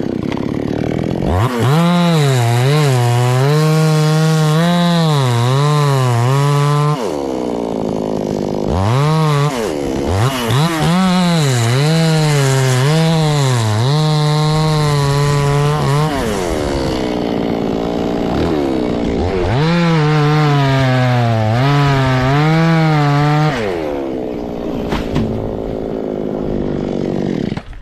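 Chainsaw cutting into a coconut tree trunk, its engine held at high revs with the pitch wavering up and down under load in three long runs, dropping back between them.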